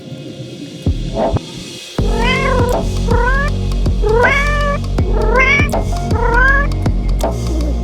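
A domestic cat meowing five times, about a second apart, over background music.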